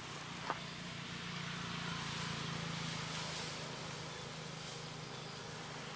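A vehicle passing nearby: a low engine hum with road noise that swells over a couple of seconds and then fades. A single short click comes about half a second in.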